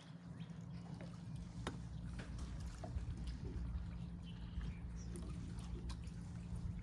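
Water trickling and splashing around a boat over a steady low hum, with scattered small knocks.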